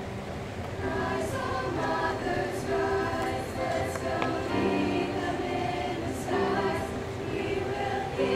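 Choir of young women's voices singing, holding notes in several-part harmony; the singing grows fuller about a second in.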